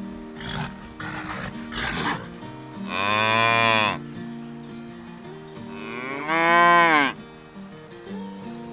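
Cattle mooing: two long moos about a second each, the second one sliding up in pitch and then falling, with a few short rough sounds before them. Background music with steady held notes plays underneath.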